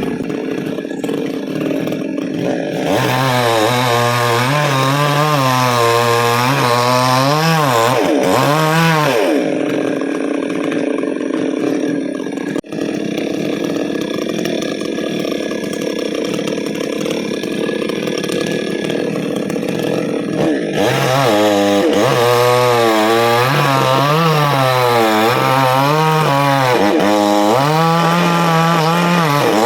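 Two-stroke chainsaw cutting into a coconut palm trunk, its engine speed rising and falling with the throttle. It runs lower and steadier for the first few seconds, then revs up about three seconds in.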